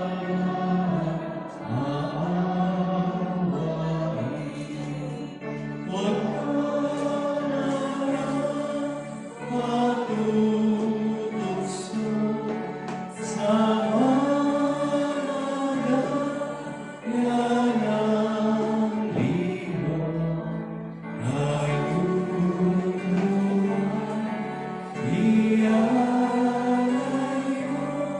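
Church choir singing a slow hymn in Tagalog, phrase after phrase with short breaths between.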